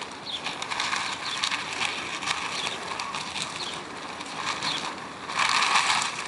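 Wind blowing across a field, loose plastic mulch sheeting rustling and flapping, with a louder gust about five seconds in. A small bird chirps several times with short falling calls.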